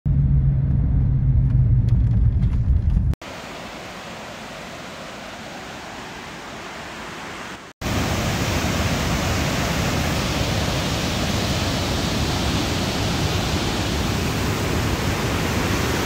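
Pailón del Diablo waterfall: a steady, even rush of falling water, loud from about eight seconds in after a quieter stretch of the same hiss. The first three seconds hold a loud low rumble with a steady hum that cuts off abruptly.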